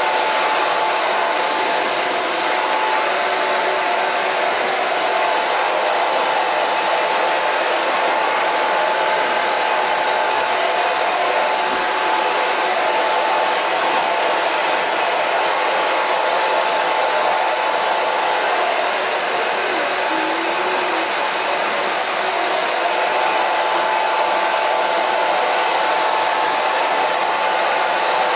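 Brushless-motor (BLDC) hair dryer running steadily, a constant rush of blown air with a thin, steady whine over it.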